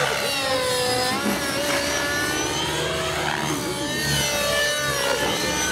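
Align T-Rex 600 nitro RC helicopter in flight, its two-stroke glow engine and rotors whining. The pitch keeps sweeping up and down as it manoeuvres.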